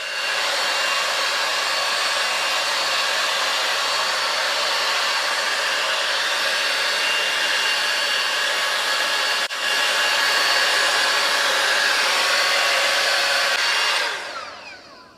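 5-in-1 hot-air styling brush with its curling-barrel attachment running: a steady blowing rush of air with a motor whine. It dips for an instant about two-thirds of the way through and runs a little louder after. Near the end it is switched off and the motor winds down with a falling whine.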